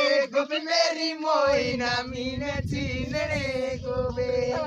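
A song with men singing over a steady held drone, with a low rough rumble under it from about a second and a half in.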